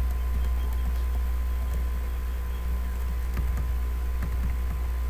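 Steady low electrical hum with a thin steady tone above it, and a few faint clicks of a computer mouse.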